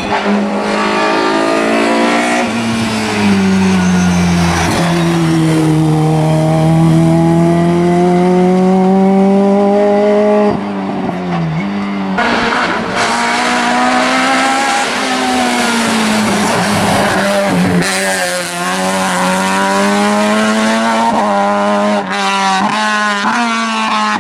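Race car engines on a hillclimb: a car's engine drops in pitch through a hairpin, then pulls a long, slowly rising note as it accelerates away. After a break about ten seconds in, another car's engine is heard approaching, revving up and down repeatedly through gear changes.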